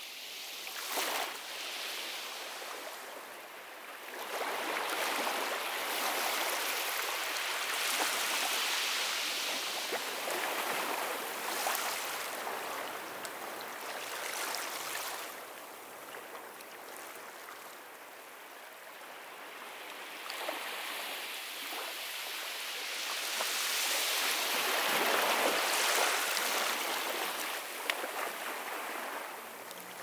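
Ocean surf breaking and washing up a beach: a steady rush of water that swells and eases in slow surges, with a quieter lull a little past the middle.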